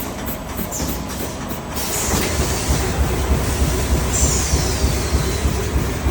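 High-speed four-line cold-cutting bag-making machine running: a dense mechanical clatter over a fast, even low beat that grows a little louder about two seconds in. A brief high falling squeal rides over it near the middle.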